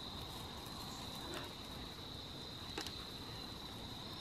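Evening insects trilling in a steady, high-pitched chorus. Two sharp pops, likely crackles from the wood fire burning in a metal barrel, come about a second and a half apart, the second louder.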